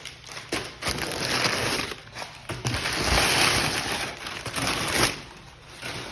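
Packing material in a shipping box being handled and pulled out, rustling and crinkling in two long bursts with a few sharp clicks.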